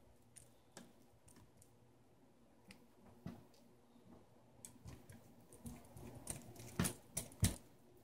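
Faint scattered clicks and ticks of a small precision screwdriver turning out screws and knocking against a laptop's plastic base, with a few louder taps near the end.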